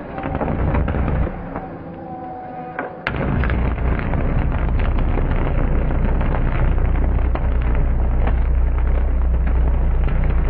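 Electrical short circuit arcing: crackling and buzzing, then a sharp snap about three seconds in, after which a louder, steady low buzz runs on with scattered crackles.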